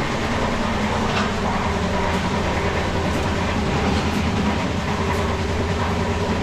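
Indian Railways passenger coach running along the track, heard from inside the coach: a steady loud rumble of wheels on rails with a few faint clicks.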